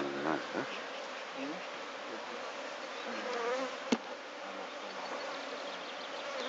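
Honeybees buzzing around an open hive: a steady swarm hum, with single bees whining close past and away several times. One sharp click about four seconds in.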